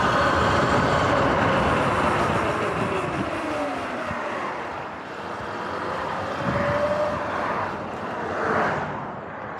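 Riding noise of a Sur-Ron X electric dirt bike at speed: wind rushing over the camera microphone, with a whine that rises and falls in pitch and cars passing on the road alongside. It grows quieter near the end as the bike slows.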